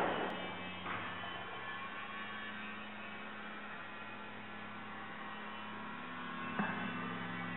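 A steady low hum, with a soft knock that rings on briefly about a second in and another near the end.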